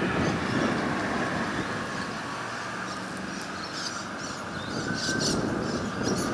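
Adelaide Metro 4000-class electric train pulling away into the distance: a steady low rumble with a faint whine.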